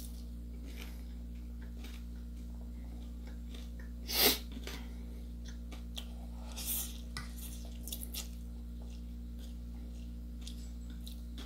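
Quiet eating sounds: a person slurping instant noodles from a fork and chewing, with a short loud noisy burst about four seconds in and a few faint clicks, over a steady low hum.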